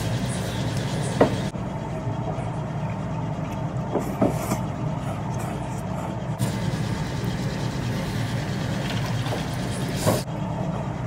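Steady low rumble and hum of a ramen shop's room noise, with a few sharp clicks about one, four and ten seconds in.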